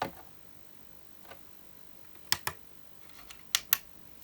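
Sharp hard clicks and taps from the toy DeLorean time-machine models being handled: one at the start, then two quick pairs about a second apart.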